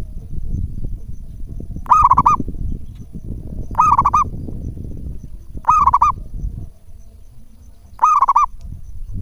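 Zebra dove (perkutut) cooing: four short calls about two seconds apart, each a quick run of wavering notes. Low rumbling background noise runs underneath.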